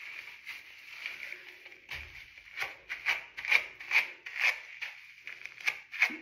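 Wet, shampoo-lathered curly hair being worked through to detangle it, a soft wet rubbing. About two and a half seconds in it turns into rhythmic strokes, about two a second.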